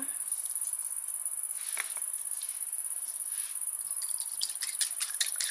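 Crickets chirring steadily at a high pitch. From about four seconds in, a fork beating an egg in a glass bowl adds quick clicks, about five a second.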